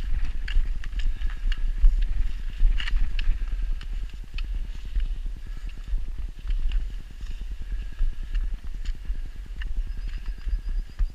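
Footsteps crunching on packed snow in irregular steps, over a low rumble on the microphone.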